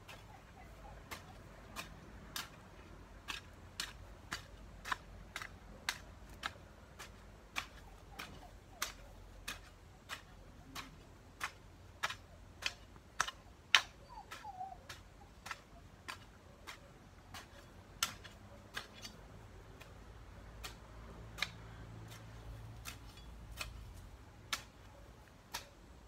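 Hoe blade chopping into garden soil in repeated strokes, each a sharp click, a little under two a second and some in quick pairs.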